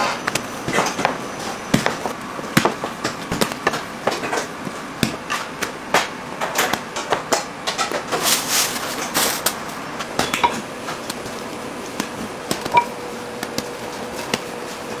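Dough being worked by hand on a bakery table: irregular knocks and taps of a metal bench scraper against the table, with short scrapes and dough-handling sounds, and a denser scraping stretch about halfway through.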